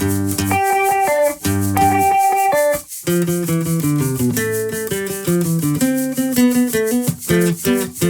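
Instrumental break of a 60s-style psychedelic pop song: guitar playing a chord pattern over bass, with a shaker keeping time; a short pause about three seconds in.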